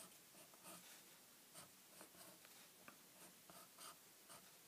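Felt-tip marker drawing on notepad paper: a series of short, faint scratching strokes.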